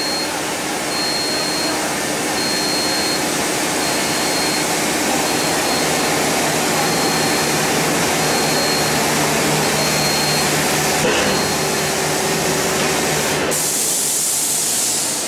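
Bottle filling and capping machinery of a granule packaging line running: a steady dense motor and air noise, with a faint high tone that comes and goes about every second. Near the end the sound turns hissier.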